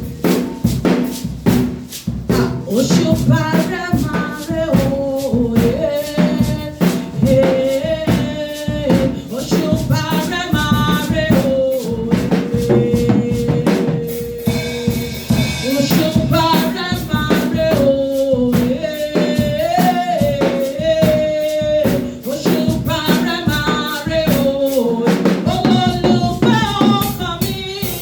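Worship music with a drum kit keeping a steady beat on bass drum and snare, under a stepping melodic lead line and chords.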